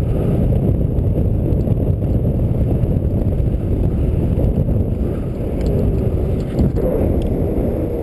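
A dogsled running along a snow trail: a steady, low rush of noise from the runners sliding over the snow and the sled moving, mixed with wind buffeting the microphone.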